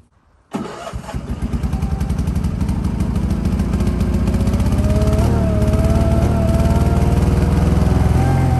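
Garden tractor engine starting up and then running steadily with an even pulsing beat.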